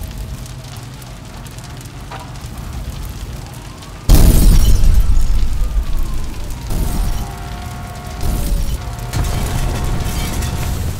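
Explosion and fire sound effects: a low rumble, then a sudden loud boom about four seconds in, followed by further booming swells with some steady musical tones under them.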